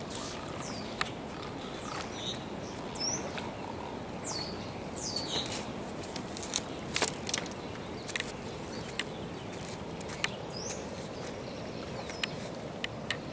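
Outdoor ambience with a steady background hiss, over which small birds give several short, high chirps that fall in pitch. Scattered light clicks and rustles of handling are mixed in.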